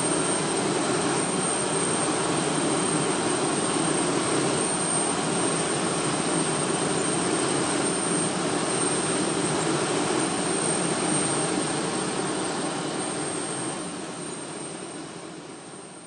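Fighter jet engine running with a steady rush and a thin high whine, fading out over the last few seconds.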